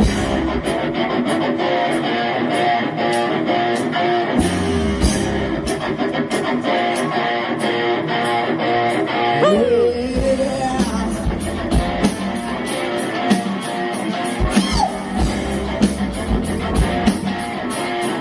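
Live rock band playing an instrumental passage: electric guitars and bass over a drum kit keeping a steady beat, with a bending note near the middle.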